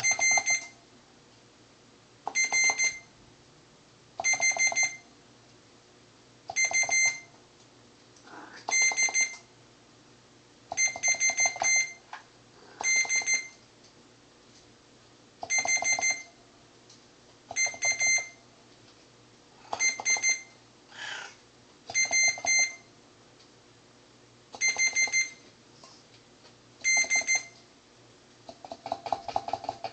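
Multimeter continuity beeper sounding about once every two seconds as each key of a Moog MG-1 keybed is pressed, each beep a short, stuttering, high tone under a second long. Each beep means that key's contact is closing on the bus; the last beeps, near the end, come more ragged.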